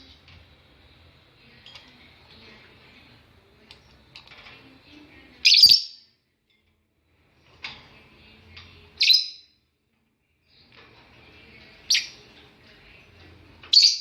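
Lovebirds chirping: soft, rapid high chatter throughout, broken four times by a loud, short, shrill call, roughly every three seconds.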